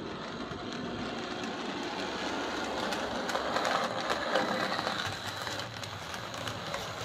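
Hornby R257 Schools class 00 gauge model locomotive, driven by its tender-mounted ringfield motor, running along the track with a steady whir and light clicks. It grows louder over the first few seconds as it pulls away smoothly on slowly raised power, running again after a loose-wheel quartering repair.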